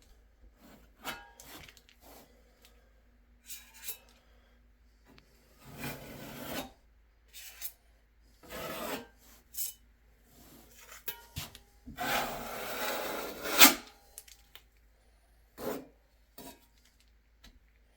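Intermittent rubbing and scraping strokes as sealant is worked over shower-board seams and fasteners. There are several short strokes, then one longer, louder stroke of nearly two seconds about two-thirds through that ends in a sharp click, with small clicks and taps in between.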